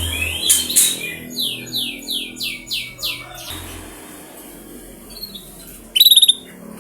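Domestic canary singing: two sharp clicks, then a run of about seven repeated downward-sweeping whistled notes. After a pause comes a short, loud, buzzy trill near the end.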